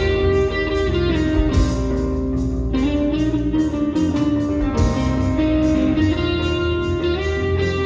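Live rock band playing through a PA: electric guitars with held, ringing notes over a steady drum-kit beat with cymbals.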